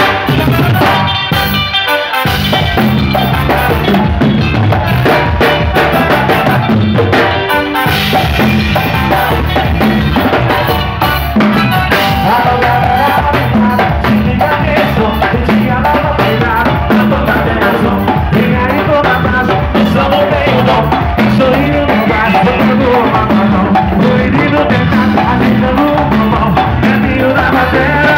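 Live band playing an upbeat number: drum kit and congas keep a steady beat under bass guitar and melody instruments. The low end drops out briefly for drum fills about a second in and again around eight seconds.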